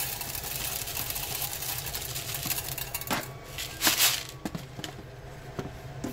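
Ground plastic flakes poured onto a perforated metal hopper grid, rattling and clicking, with a louder rush of pouring about three to four seconds in. A steady machine hum runs underneath.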